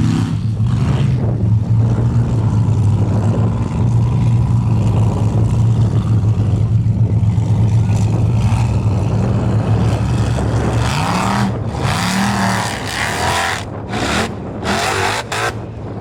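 Formula offroad buggy's race engine running hard at a steady, high pitch, then revving up twice in quick succession about eleven seconds in. Short, loud rushes of noise follow near the end.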